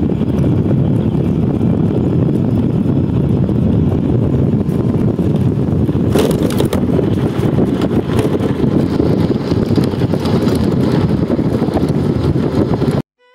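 Loud, steady wind rumble on the microphone with a vehicle running, as when riding along a road. It cuts off suddenly near the end.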